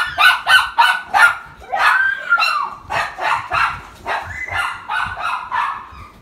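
A small dog barking rapidly and repeatedly, about three high-pitched yaps a second, growing fainter toward the end.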